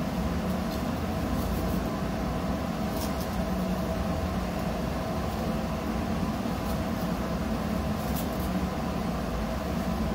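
Steady machinery drone, a constant hum with several held tones under a noisy rush, with a few faint small clicks.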